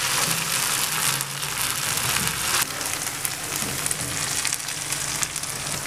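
Chicken strips and green capsicum sizzling in oil and sauce in a non-stick frying pan on low heat, turned now and then with a spatula. The sizzle is a steady hiss.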